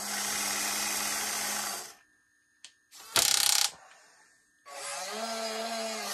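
Electric motors of a 1:16 scale RC Cat 320 excavator running in spells as the arm and grapple move: a steady motor whine for about two seconds, a pause with a single click, a short loud buzz about three seconds in, then the motors running again near the end with a pitch that bends up and down.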